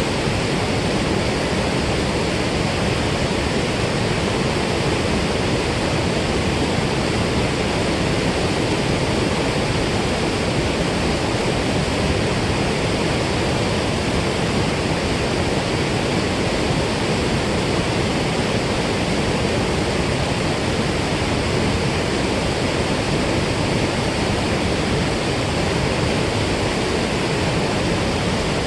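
Steady loud rush of water pouring out through a dam spillway.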